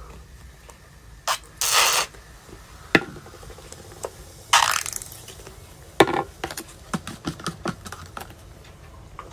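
Plastic bottles and a plastic cup being handled: sharp clicks and knocks, two short bursts of hiss, and a run of light ticks near the end as a straw is stirred in the drink in the cup.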